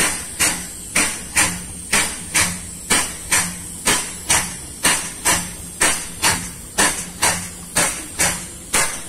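Vacuum pump sucking up the last crude palm oil from a nearly empty ship's cargo tank, knocking in a steady beat about twice a second over a steady hiss.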